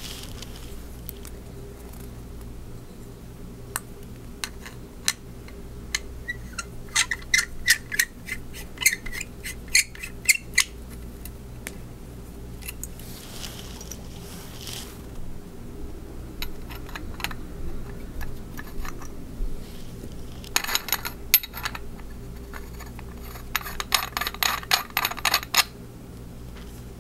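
Metal lightsaber hilt parts being handled and screwed together: scattered clicks and taps, with three runs of rapid clicking as the threaded sections are turned.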